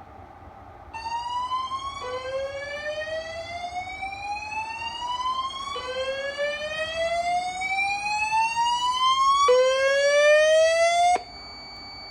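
Voice-evacuation fire alarm speakers sounding the slow whoop alert tone: repeated rising sweeps, each lasting nearly four seconds, growing slightly louder. The tone starts about a second in and cuts off abruptly near the end.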